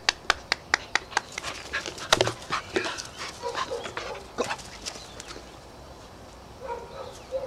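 Steady hand clapping, about four or five claps a second, stopping about a second in; then a Labrador retriever panting as it runs close by through dry grass.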